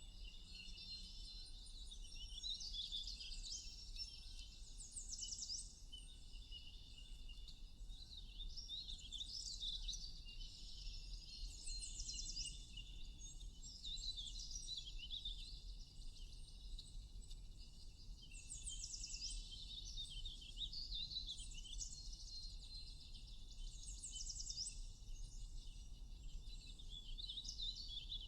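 Several small birds chirping and twittering in overlapping calls. A quick, high trill of rapid notes comes back every several seconds.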